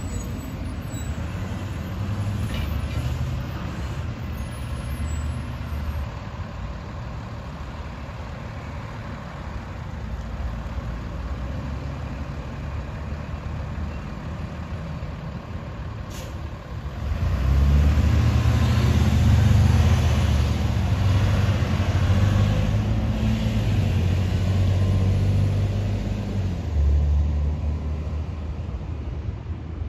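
School-bus diesel engines pulling away. First a 2010 IC CE200 with a MaxxForce 7 V8 runs steadily. About 16 s in there is a short, sharp air-brake release, then a 2004 Thomas FS-65 with a Mercedes MBE900 six-cylinder diesel gets much louder as it accelerates away.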